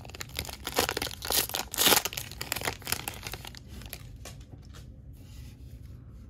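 Foil wrapper of a jumbo baseball card pack being torn open and crinkled, in crackly bursts for about three seconds before dying away.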